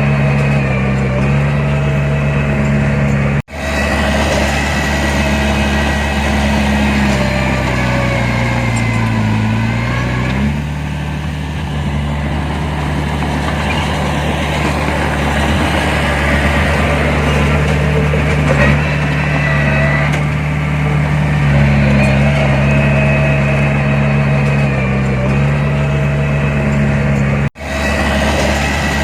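Heavy earthmoving machinery's diesel engine running steadily; its engine speed sags for a couple of seconds and then comes back up about a third of the way through. The sound breaks off for an instant twice.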